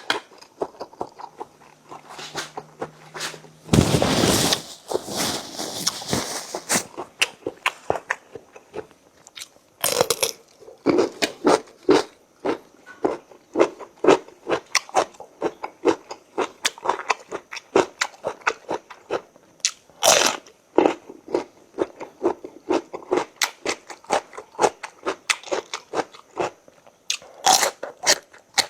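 Close-miked eating: a steady run of chewing and crunching, about two bites a second, with a louder noisy burst about four seconds in and a few shorter ones later.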